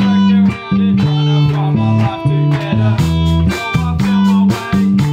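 A live rock band playing: electric guitar over a bass guitar line that changes note every half second or so, with drums and cymbal hits growing busier about halfway through.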